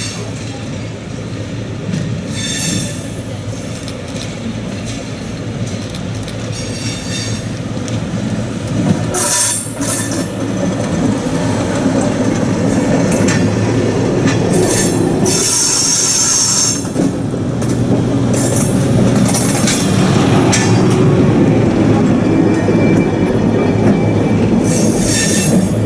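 SNCF X 2800 diesel railcar rolling slowly past at close range, its engine running under a steady rumble and growing louder as it passes. Its wheels squeal in short high screeches about nine seconds in and again several times in the second half.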